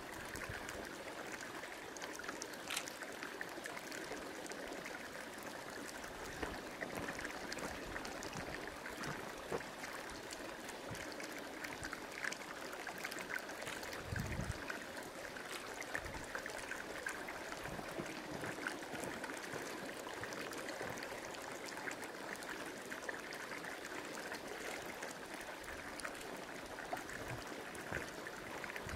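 Steaming volcanic hot-spring pool, its water bubbling and gurgling in a steady watery hiss with many small pops, and a brief low thump about halfway through.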